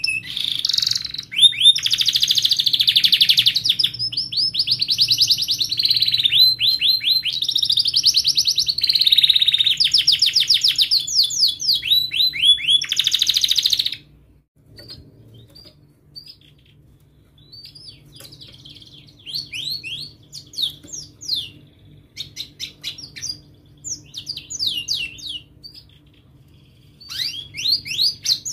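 Domestic canary singing rolling trills: fast runs of rapidly repeated chirping notes. The song is loud and unbroken for about the first half, then breaks into quieter, shorter phrases with gaps, and turns loud and continuous again near the end.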